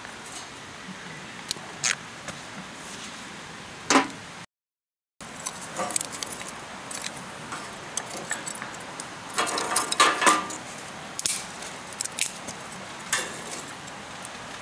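Sharp clicks and light wooden knocks as kindling sticks and a lighter are handled against a folding steel fire grill while a small fire is being started. A denser run of clattering knocks comes about two-thirds of the way in.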